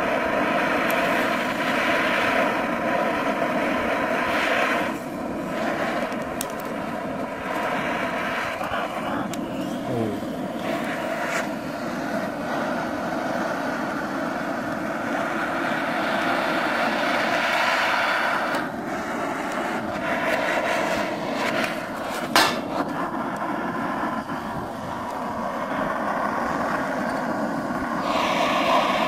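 Handheld butane blowtorch flame hissing steadily as it melts through the bases of aluminium drink cans, with a few brief dips as the flame is moved. One sharp click partway through.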